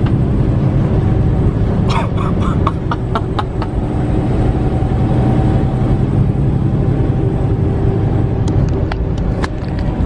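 Cab noise of a semi-truck at speed: a loud, steady low rumble of engine and road. Brief clicks and rattles come about two seconds in and again near the end.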